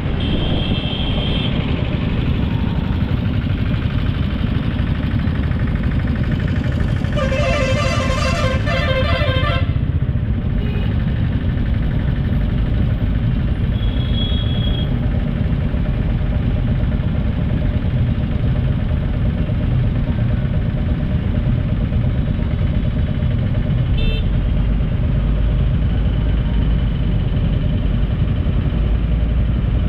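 Road traffic with a steady low rumble of engines and tyres, and a vehicle horn honking for about two and a half seconds about a quarter of the way in, with a few short higher beeps now and then.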